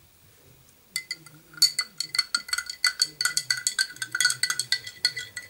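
A spoon clinking rapidly against the inside of a glass tumbler, stirring powdered drink mix that had settled at the bottom into the water. The clinks ring and come several a second, starting about a second in.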